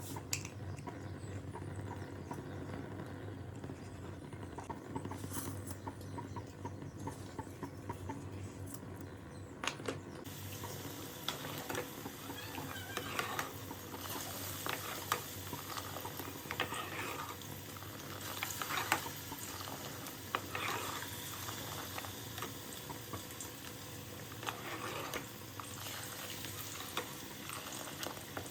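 Pakoras frying in oil in a karai, with a spatula scraping and stirring against the pan. A high sizzling hiss comes in suddenly about ten seconds in and carries on.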